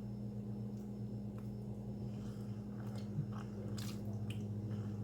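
Close-up chewing of a soft chicken quesadilla, with faint wet mouth clicks that come more often in the second half. Under it runs a steady low hum.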